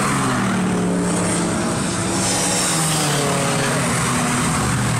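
Several race cars' engines at full throttle passing down the main straight, one after another, the pitch of each falling as it goes by.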